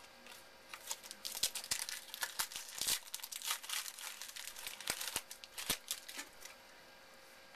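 A trading-card pack's wrapper being torn open and crinkled by hand. It is a dense run of crackles that starts about a second in, is loudest early on, and stops near the end.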